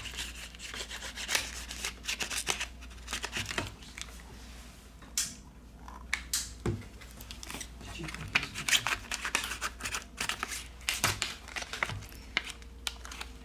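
Plastic card being slid around the edge of a Samsung A30s phone's glued back cover, cutting through the adhesive: a long run of irregular scraping clicks and crackles as the card works along the seam.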